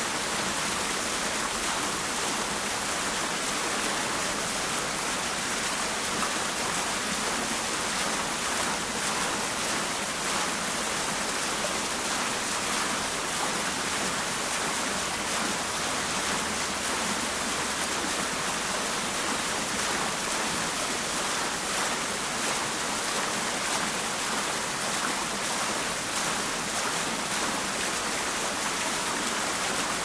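Tiered fountain splashing steadily: water pours from the upper bowl into the basin below while a bubbling jet churns in the pool.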